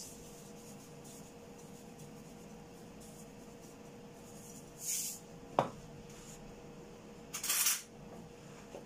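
Salt pouring from a canister's spout into a cooking pot: two short hissing pours, about five seconds in and a longer one around seven and a half seconds, with a single knock between them.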